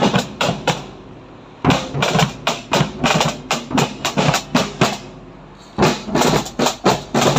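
Marching snare drum and bass drum beating a steady marching rhythm, about three to four strokes a second, in three phrases with two short breaks.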